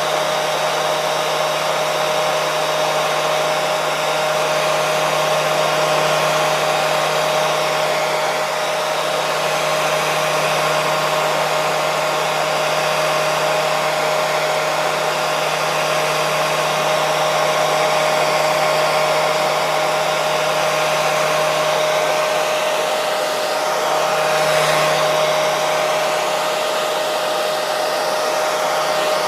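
Hair dryer running steadily: a constant blowing rush of air with a steady motor whine.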